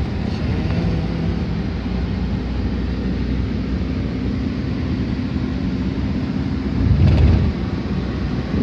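Cabin noise of a moving Toyota Avanza: a steady low rumble of engine and road. A brief louder low rumble comes about seven seconds in.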